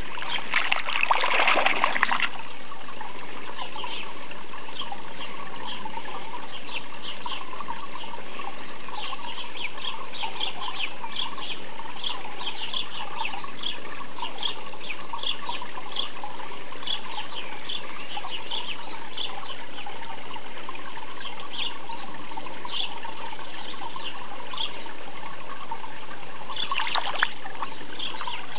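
Pond water splashing as koi feed at the surface around a hand, with many small, quick splashes over a steady water noise. Louder splashing comes in the first two seconds and again near the end.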